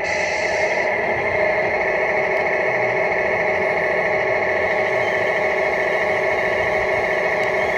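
RC model tipper truck running steadily: an even mechanical hum with a higher whine.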